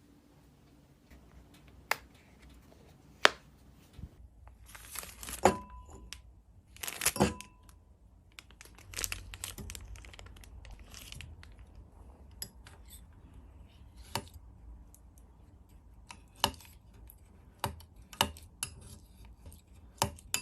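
Close handling noises: rustling and crinkling, several sharp taps, and two short clinks about five and seven seconds in that each ring briefly.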